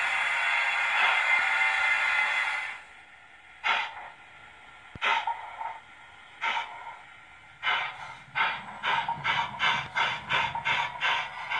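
Steam-locomotive sound from a Zimo MX648 sound decoder playing through a Sugarcube speaker in a Bachmann L&YR tank engine model: a steady hiss of steam that stops about three seconds in, then exhaust chuffs that start slowly, a second or so apart, and come quicker and quicker as the model pulls away.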